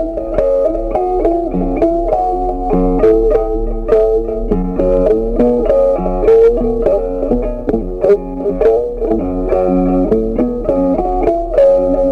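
Background music: a plucked guitar melody over a bass line, played at a steady beat.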